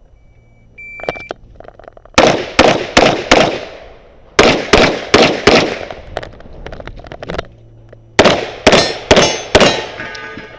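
Shot timer beeps once, about a second in, then a handgun fires twelve shots in three quick strings of four, each string about a second long with a pause between them, during a USPSA classifier stage.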